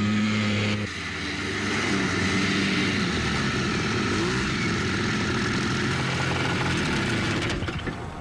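Small engines of children's Kitty Cat-class snowmobiles running in a steady drone. There is a change in the engine note at a cut about a second in.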